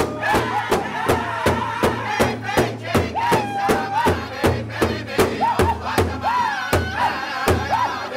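Powwow drum group striking a large shared drum in unison with padded sticks, a steady beat of about two to three strokes a second, while the men sing high, wavering phrases over it.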